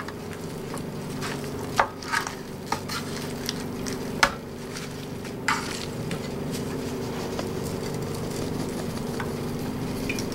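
Hands turning raw, seasoned chicken pieces in a metal baking pan: soft wet handling, with a few sharp knocks of pieces against the pan, the clearest about two and four seconds in. A steady low hum runs underneath.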